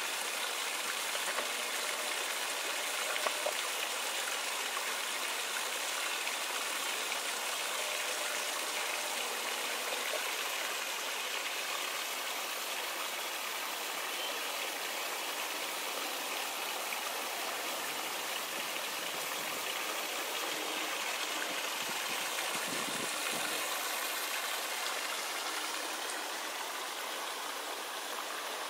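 Steady rush and splash of water spilling from a canal bywash weir's outfall over the edge of sheet piles into the canal.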